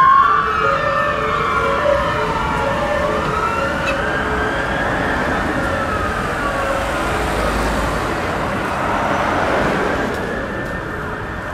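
Sirens of two Mercedes-Benz Atego fire engines responding: a wail of slow rising and falling sweeps together with a hi-lo two-tone, over traffic noise. The two-note hi-lo stops after several seconds, and the sirens grow fainter near the end as the engines move away.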